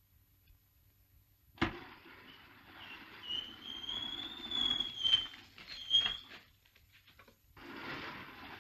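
A heavy secret wall panel opening: a sudden thump about a second and a half in, then a grinding slide with a squeal that rises a little, two sharp knocks, and it stops about six seconds after it began.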